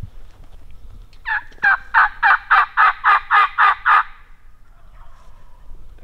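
A loud series of about ten evenly spaced calls, roughly three a second, followed by a fainter wild turkey gobble near the end.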